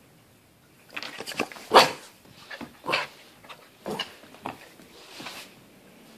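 Black toy poodle puppy barking in play: a run of about six short, sharp barks over a few seconds, the loudest about two seconds in.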